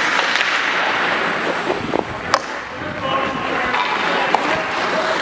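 Ice hockey rink noise: a steady scraping hiss of skate blades on ice, with two sharp clacks about two seconds apart.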